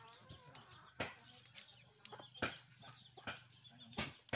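Chickens clucking, with sharp crackles from the wood fires under the woks about once a second.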